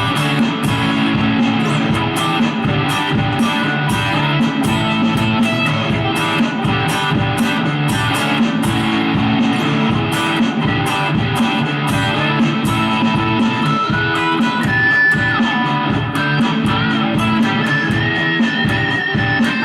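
Telecaster-style electric guitar with active humbucker pickups, played through a Mooer GE200 amp-modelling unit: a lead line over a steady beat. Held, bent high notes ring out in the last few seconds.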